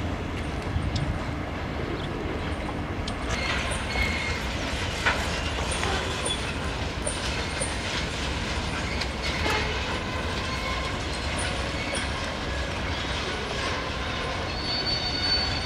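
A freight train of two diesel locomotives and a string of cars moving slowly through a rail yard. The wheels click over rail joints and give short high squeals, over a steady low rumble.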